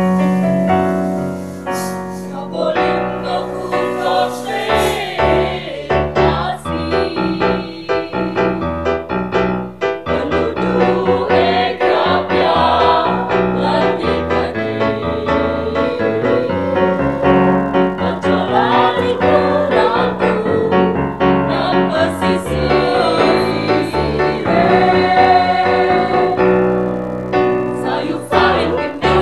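Children's school choir singing in unison over piano or keyboard accompaniment.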